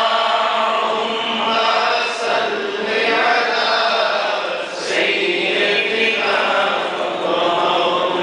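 A man's voice chanting a naat, an Urdu devotional poem in praise of the Prophet, through a microphone and hall PA, in long held melodic lines with short pauses about two and five seconds in.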